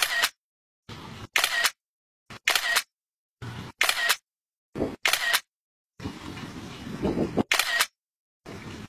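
Smartphone camera shutter clicks, about six of them at roughly one per second, each short and sharp, with gaps of dead silence between them.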